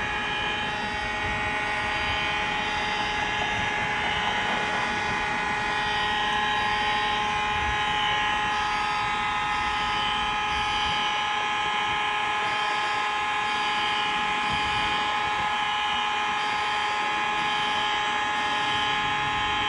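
Simplex fire alarm sounding in a concrete parking ramp: a steady, many-toned drone, with a faint high-pitched tone pulsing on and off over it about once a second, echoing off the concrete.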